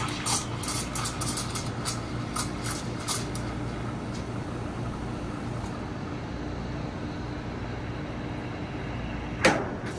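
Espresso machine steam wand steaming milk in a pitcher: irregular sputtering hiss for the first few seconds as air is drawn into the milk, then a steadier, quieter hiss as the milk spins. A short loud burst near the end.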